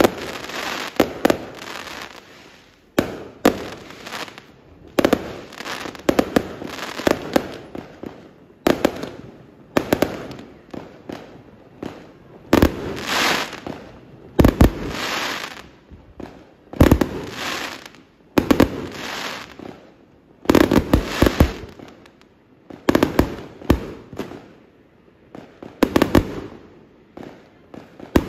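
A fan-shaped multi-shot fireworks cake firing shot after shot, a sharp bang every one to two seconds, often two or three close together. Each bang trails off into about a second of crackling.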